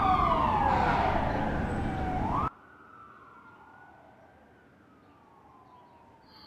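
Ambulance siren wailing in slow sweeps that slide down and back up in pitch. It is loud for about the first two and a half seconds, then cuts suddenly to a faint wail.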